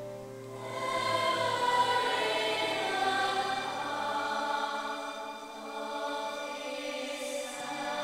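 Children's choir singing a sustained piece with a violin accompanying; the voices swell about a second in.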